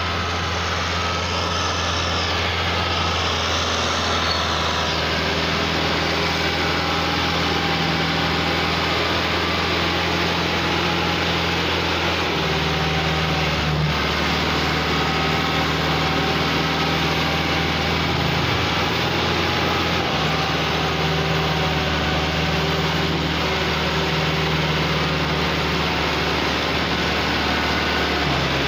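Massey Ferguson 385 tractor's four-cylinder diesel engine running steadily under load while pulling a heavily loaded sugarcane trailer. The engine note shifts slightly about twelve seconds in and again around twenty seconds in.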